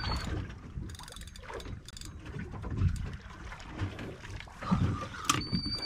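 Wind and water noise aboard a small fishing boat at sea: uneven low rumbling gusts on the microphone with a few knocks, and a short high-pitched whine near the end.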